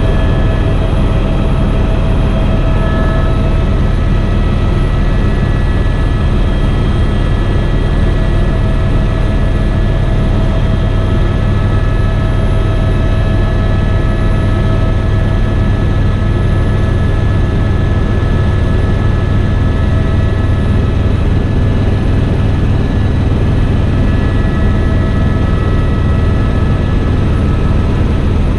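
Helicopter in flight: a loud, steady drone of rotor and engine, with a few faint steady whining tones above it.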